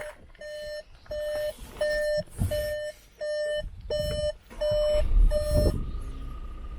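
Skoda Kodiaq RS's in-car warning chime beeping about twice a second. About five seconds in, the 2.0-litre twin-turbo diesel engine cranks and starts, then settles into a low idle.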